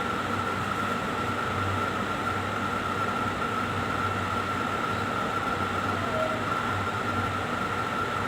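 Tap water running steadily during six-step handwashing, a constant rushing noise with a steady high tone behind it.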